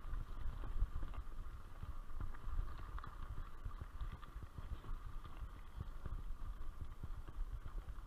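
Mountain bike rolling over a rough dirt track, with a steady run of irregular low knocks and rattles from the bumps.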